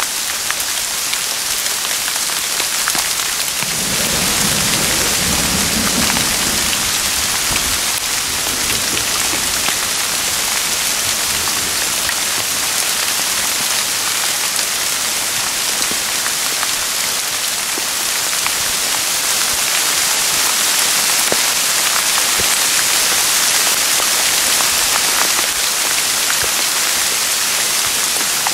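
Steady rain falling on aspen leaves and grass, an even hiss with scattered drop ticks. A low rumble rises under it about four seconds in and fades over the next few seconds.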